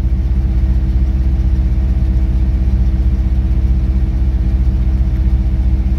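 Cadillac Fleetwood's 5.7-litre LT1 V8 idling steadily, heard from inside the cabin, as the engine warms up toward operating temperature.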